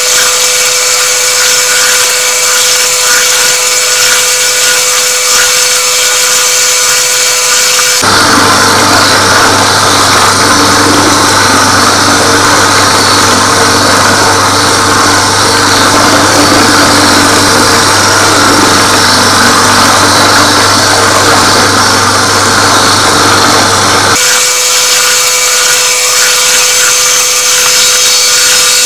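Bowl cutter running steadily, chopping meat batter for Leberkäse. Its sound changes abruptly about eight seconds in to a deeper hum, and switches back about five seconds before the end.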